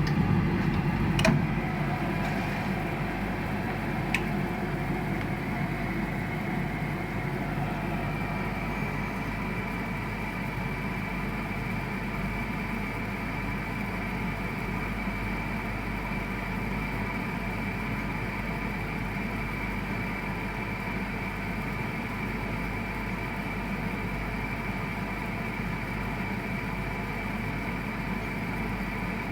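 BAXI Main 5 14F gas boiler running with a steady hum and hiss. Two sharp knocks come in the first few seconds, about three seconds apart: the gas valve knocking. A steady high tone comes in about eight seconds in.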